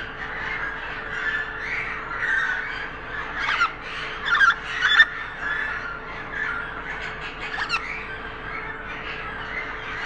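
Budgerigars chattering and warbling without a break, with several sharp, falling chirps in the middle.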